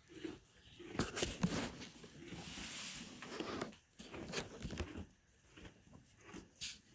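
Miniature donkey pulling and chewing dry hay from a rubber feed tub: rustling and tearing of hay, loudest from about a second in, then short irregular crunches of chewing.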